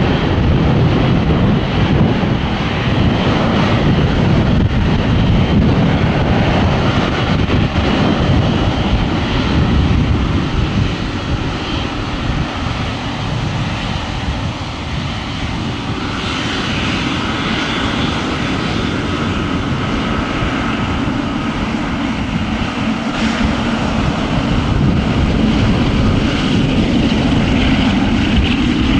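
Jet airliner engines running, a dense steady rumble; a thin high whine comes in about halfway through.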